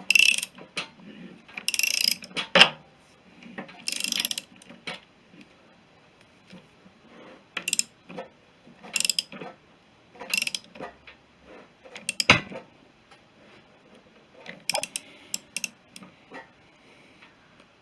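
Ratchet wrench clicking in short, irregular strokes, with a single heavier metal knock about twelve seconds in.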